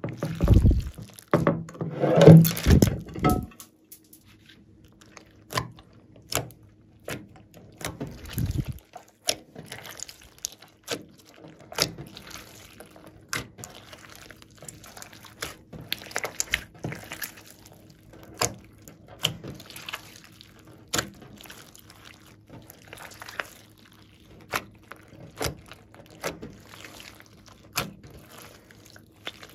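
A large sticky slime loaded with foam beads being squeezed and stretched by hand: wet squishing and squelching, heaviest in the first few seconds, then a long run of sharp sticky clicks and pops as it is pulled and folded.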